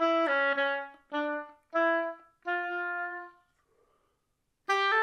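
Solo oboe playing a phrase of separate held notes with short gaps between them. It stops for about a second, then starts again near the end.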